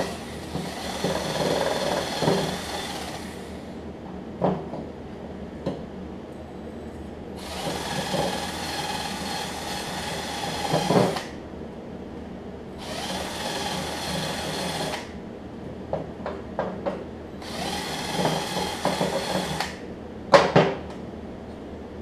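Cordless drill spinning a wire brush against a mower deck pulley to clean and smooth its groove, run in four bursts of a few seconds each. Clicks and knocks of metal parts come between the bursts, with a sharp knock near the end.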